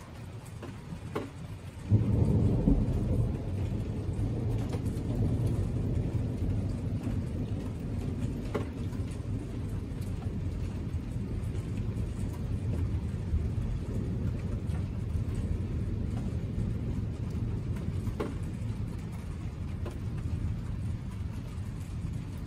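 Thunder breaking suddenly about two seconds in, then a long, low rumble rolling on and slowly easing. A few isolated sharp ticks sound over it.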